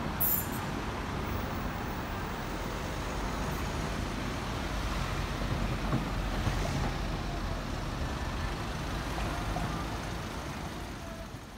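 Road traffic: cars driving over the level crossing after the barriers lift, a steady rumble of engines and tyres that fades out near the end.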